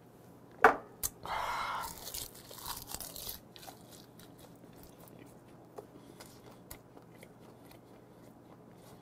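A soju shot glass set down on a wooden table with one sharp knock, followed by a short breathy exhale. After that, faint mouth-noise chewing of gwamegi (dried saury) wrapped in laver, with small crunches and wet clicks.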